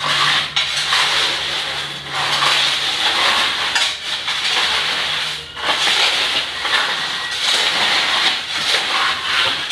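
Hand tools, a hoe and shovel, scraping and pulling wet cement mortar across a concrete floor: a rough, continuous scraping with brief pauses every second or two.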